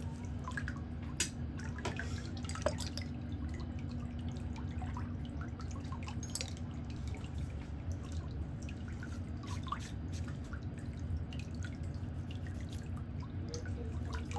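Metal pedicure instruments working along a toenail's sidewall: scattered light ticks with a few sharper clicks, over a steady low hum.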